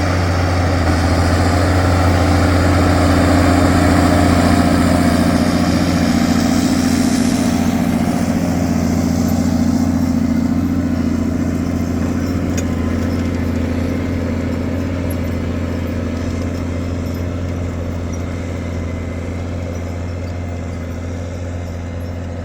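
Claas Axion 820 tractor's six-cylinder diesel engine running at a steady speed through a straight-pipe exhaust with no muffler. It is loudest a few seconds in, then slowly fades.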